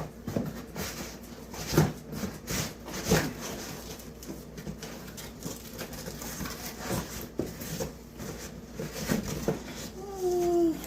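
Scattered knocks, taps and rustles of objects being handled, with a short falling whine near the end.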